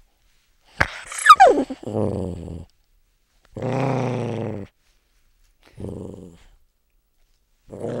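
Small dog growling in four short low bouts, with a loud high-pitched yelp that falls sharply in pitch about a second in.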